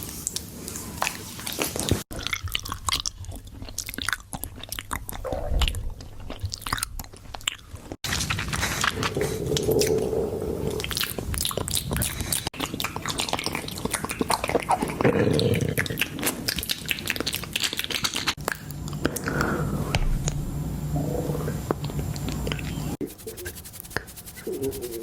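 Hungry stomach gurgling and growling, recorded close up, with dense crackling and clicking throughout and deeper rumbles about ten and fifteen seconds in.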